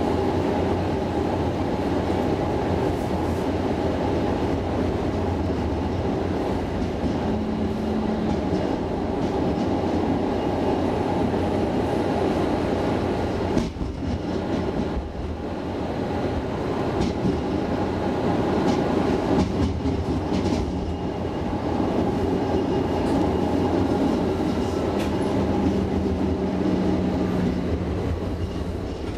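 Cab-end interior of a Tvärbanan A32 light-rail tram running along the track: a steady rolling rumble of the moving tram, dipping briefly about halfway through, with a faint low steady tone coming in for a moment twice.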